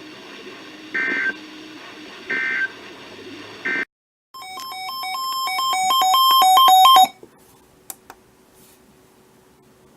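Three short warbling data bursts from a NOAA Weather Radio broadcast, the EAS end-of-message signal that closes the warning. After a brief dropout, a quick run of stepping electronic beeps grows louder and cuts off about seven seconds in, followed by faint clicks over hiss.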